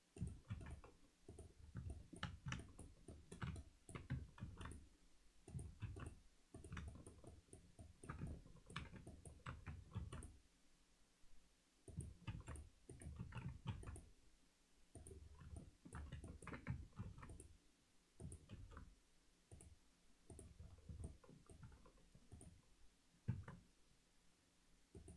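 Faint, scattered clicks of a computer mouse and keyboard, irregular and in short flurries, with soft low thumps among them.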